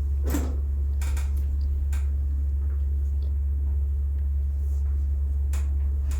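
Steady low hum throughout, with a few short sharp clicks and taps: one just after the start, a cluster about a second in, one at two seconds and two more near the end.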